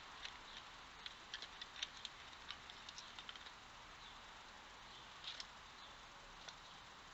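Red fox chewing and crunching treats: a scatter of faint, sharp clicks, thickest in the first half, over the steady hiss of a trail camera's microphone.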